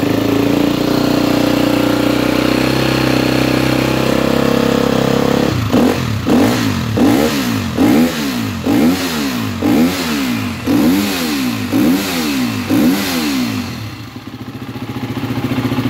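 KTM 250 Six Days enduro motorcycle engine idling, then blipped about a dozen times in quick succession from about six seconds in, each rev rising and falling. It settles back to idle near the end.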